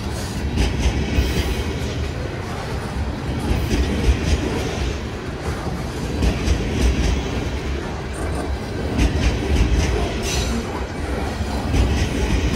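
Freight train of loaded woodchip hopper cars rolling past close by: a steady low rumble of steel wheels on the rails with irregular clickety-clack as the wheels cross rail joints.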